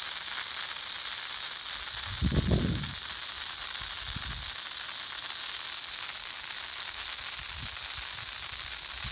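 Water spraying from a hose nozzle: a steady hiss. A brief low rumbling thump about two seconds in is the loudest moment, with softer low bumps later.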